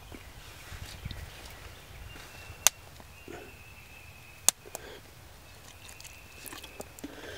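A metal knife clicking sharply against a frying pan twice, with a few lighter taps and scrapes among the vegetables, over a quiet outdoor background.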